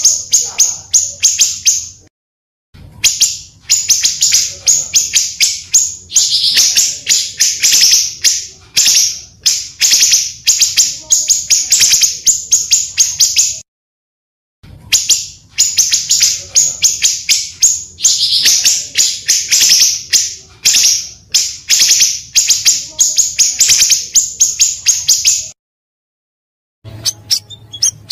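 Recorded song of a small songbird sold as 'pancawarna', played as a lure: a long stream of rapid, high, scratchy chirps. It comes in phrases of about eleven seconds, each broken off by a second or so of dead silence, as in a looped recording.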